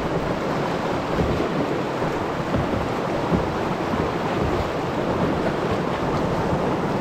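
River rapids rushing steadily around a canoe, with wind buffeting the microphone.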